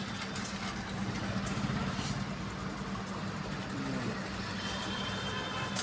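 A steady low mechanical hum with a faint even hiss, and a few faint clicks.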